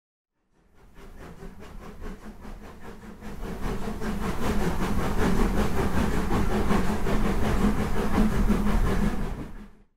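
Steam train running, with a quick regular beat, fading in and growing louder, then fading out near the end.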